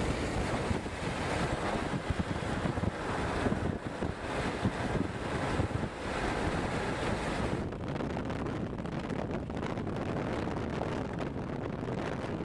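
Strong wind buffeting the camera microphone: a steady rushing roar with low rumbling gusts. About eight seconds in, the hiss loses its top end and turns duller.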